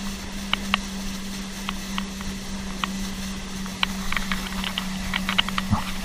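Jet ski (personal watercraft) running at speed, its engine a steady low hum, with scattered sharp ticks over it, like spray or water drops striking near the camera.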